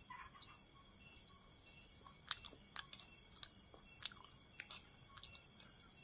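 A person chewing a mouthful of Maggi instant noodles, with a run of sharp little clicks about every half second from about two seconds in, quiet and close.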